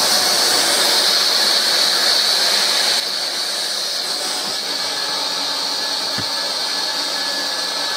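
Hot-air plastic welding gun running, its fan blowing a steady hiss through the nozzle while tacking polypropylene; it drops a little in level about three seconds in.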